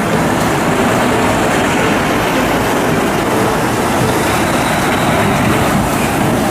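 Steady vehicle running noise: a loud, even rumble with hiss that holds unchanged.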